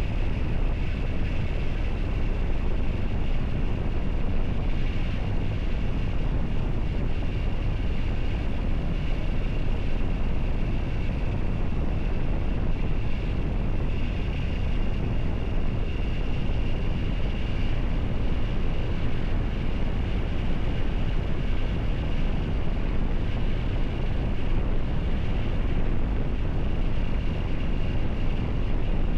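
Triumph Tiger 900 GT's inline three-cylinder engine running steadily under heavy wind rush on the microphone, with no revving up or down.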